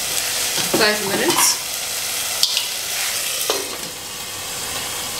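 Chopped tomatoes sizzling in hot oil and spices in a stainless-steel pot, a steady frying hiss. About two and a half seconds in, a metal lid clinks onto the pot.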